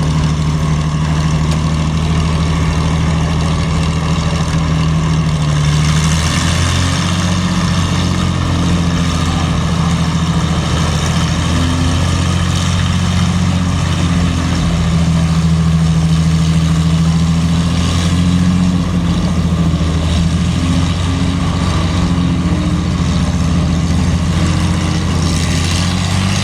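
Panther tank's engine running loud and steady with a deep, even note. Its pitch steps up about six seconds in and wavers between higher and lower settings after that.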